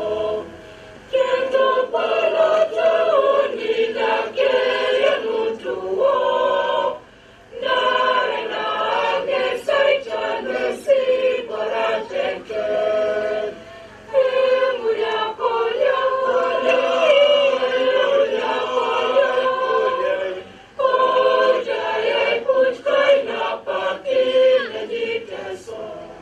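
A crowd of men and women singing an anthem together, with short pauses between lines about every six or seven seconds.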